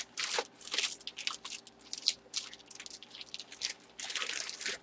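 Packaging being handled by hand as a graded comic slab is wrapped for protection: irregular crinkling and rustling strokes, with a longer continuous rustle near the end.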